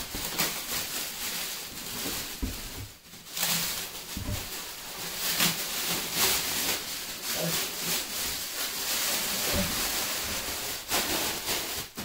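Clear plastic bag crackling and rustling as it is pulled off a model airplane's fuselage, with a couple of dull thumps from the fuselage being handled about two and four seconds in.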